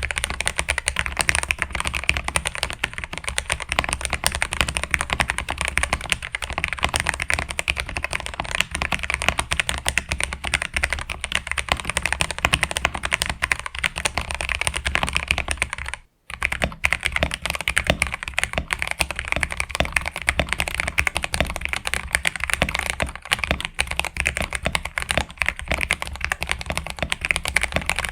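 Mechanical keyboard being typed on quickly and continuously, a dense run of keystroke clacks. The typing breaks off for a moment about sixteen seconds in, then carries straight on.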